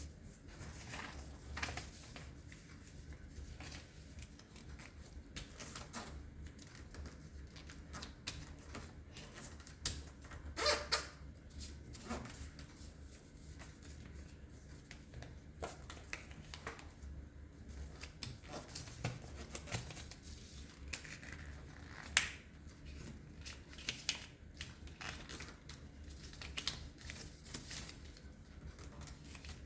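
A sheet of origami paper being folded and creased by hand: scattered rustles, crinkles and sharp crease clicks. The loudest rustle comes about eleven seconds in and a sharp click about twenty-two seconds in, over a steady low hum.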